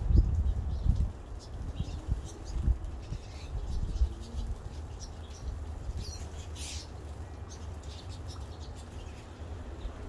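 Small birds bathing in a rainwater puddle: scattered short high chirps, flutters and splashes, over a steady low rumble that is the loudest sound and is heaviest in the first second or so.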